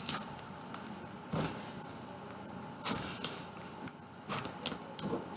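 Slime being kneaded and squished by hand with modeling clay mixed in, giving scattered short wet clicks and pops at irregular moments.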